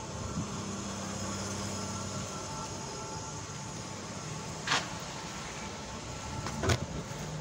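A bike rolling along paving slabs over a steady background hum, with two sharp knocks, one about halfway through and one near the end.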